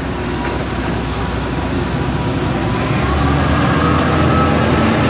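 Road traffic noise: a vehicle engine's low rumble over steady road noise, the rumble growing stronger about three seconds in.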